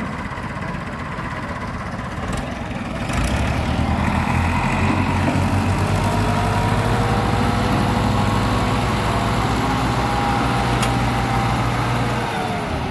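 Massey Ferguson 260 tractor's diesel engine working hard at high revs to haul a fully loaded trolley, a sign of heavy load. It gets louder about three seconds in, then holds a steady whine over several seconds before the pitch sags near the end.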